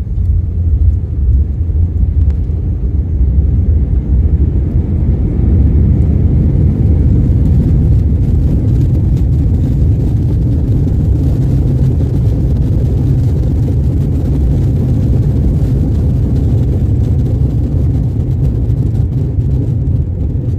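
Airbus A321-200 landing: a loud, steady low rumble that swells slightly a few seconds in and holds.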